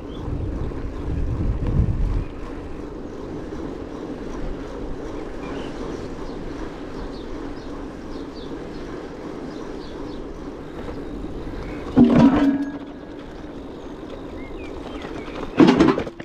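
Steady rolling noise of a bicycle on the move, with wind buffeting the microphone for the first couple of seconds. Two sharp knocks stand out, the loudest sounds here: one about three quarters of the way through and one near the end, typical of the bike jolting over bumps.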